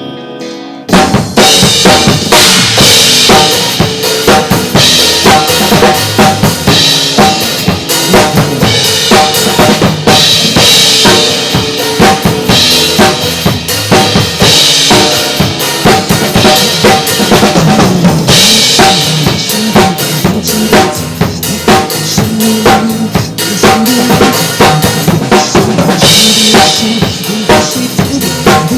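Acoustic drum kit, kick and snare, played live over a recorded Mandopop backing track. After a softer guitar passage, the full beat comes in loudly about a second in and keeps going steadily.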